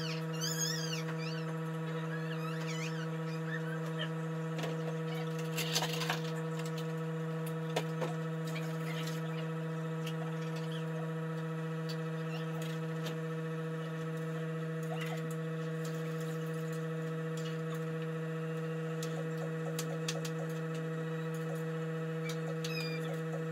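A steady electrical hum of several even tones throughout, with occasional clinks of a pan lid and utensil at the stove. Short, high chirps sound right at the start and again near the end.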